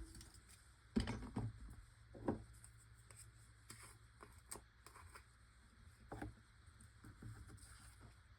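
Faint, scattered taps and clicks of craft supplies being handled while red embossing powder is applied to a stamped paper square.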